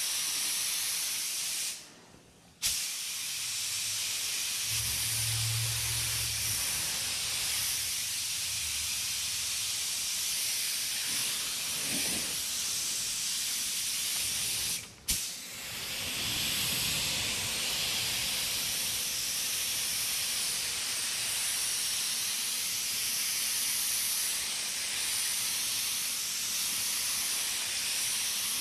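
Gravity-feed Astro Euro Pro HE paint gun spraying a wet bed coat onto a car panel: a steady hiss of air and atomized paint. It stops briefly twice, about two seconds in and again about halfway through, and starts again sharply each time.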